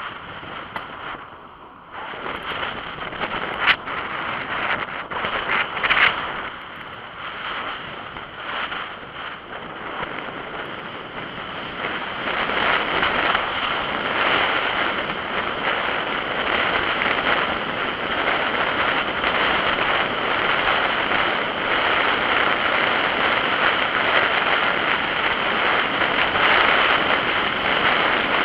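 Wind rushing over an action camera's microphone on a moving bicycle, with road noise from the tyres. A couple of sharp knocks come about four and six seconds in, and the rushing grows louder and steadier from about twelve seconds in.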